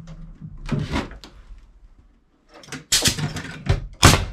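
Several irregular knocks and bangs of framing lumber being worked, the loudest a sharp bang about four seconds in.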